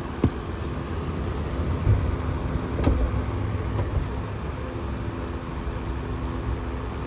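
A steady low mechanical hum with a few short knocks from handling.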